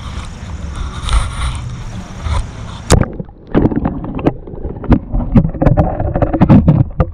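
Underwater camera being put into a river: a steady rumble of wind and handling, then about three seconds in the sound turns muffled as the camera goes under water, followed by a string of dull, irregular knocks and thumps as it is handled and settled against the stony riverbed.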